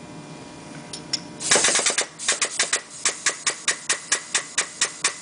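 Hydraulic press pushing the worn OEM rubber bushing out of a Dodge Caravan engine subframe, with a socket as the pusher. About a second and a half in it starts a rapid, even train of sharp clicks, about six a second.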